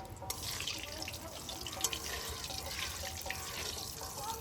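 Bay leaves, nigella seeds and dried red chillies sizzling in hot oil in a pan, with many small crackles and spits as the tempering fries.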